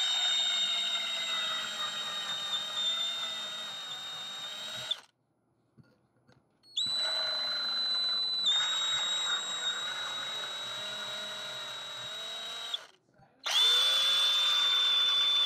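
Handheld power drill whining as it runs a 5/64-inch bit into the gas port of a steel AR-15 barrel, opening the hole out. The drill runs in three stretches: it stops about five seconds in for nearly two seconds, then again briefly near the end.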